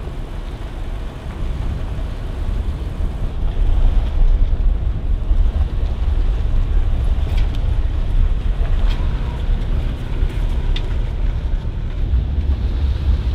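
Road noise inside a Toyota's cabin while driving slowly on a gravel road: a steady low rumble, with a few faint ticks along the way.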